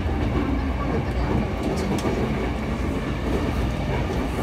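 Running noise inside a JR East E231-500 series Yamanote Line car (MoHa E231-591) travelling at speed: a steady rumble of wheels on rail, with a few faint clicks about two seconds in.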